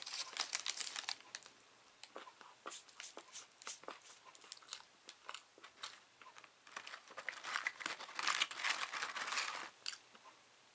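Close-up eating of a fast-food meal: crisp crunching bites and wet chewing clicks, densest in the first second. A longer stretch of paper wrapper rustling and crinkling comes about two-thirds of the way in.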